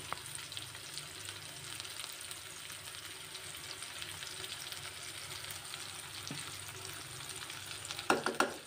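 Sliced onions, shallots, garlic and chillies sizzling steadily as they stir-fry in an aluminium wok, with a few light clicks and scrapes of a spoon stirring through them.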